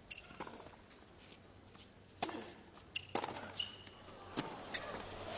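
Tennis rally: the ball is struck by rackets and bounces on the hard court, giving sharp pops roughly a second apart, with a couple of short squeaks of shoes on the court.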